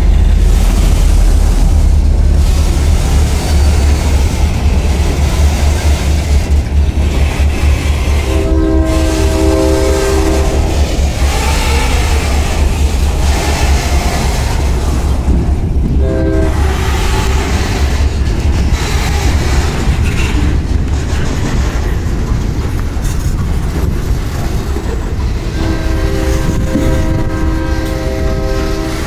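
Freight train of boxcars rolling past a grade crossing: a heavy steady rumble of wheels on rail. Over it a train horn sounds three times: a blast of about two seconds a third of the way in, a short one about halfway, and a longer one near the end.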